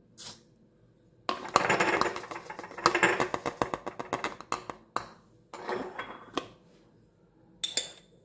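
Nigella seeds poured from a small spoon into a glass jar: a dense rattle of tiny clicks lasting a few seconds, then a shorter rattle. Near the end the spoon clinks once on the glass.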